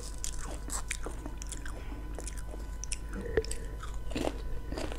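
Potato chips being eaten close to a mini microphone: dry crackles as a chip is snapped and then crunched and chewed, with small wet mouth sounds between the crunches.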